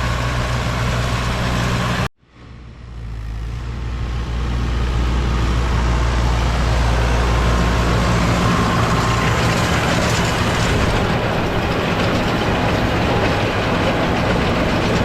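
Tractor engine running steadily, with the clatter and rush of hay-making machinery over it. The sound cuts out abruptly about two seconds in and comes back within a second or two.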